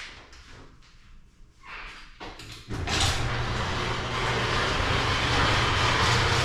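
A vehicle running: a steady rush of noise over a low hum sets in suddenly about three seconds in, after a few quieter seconds with faint knocks.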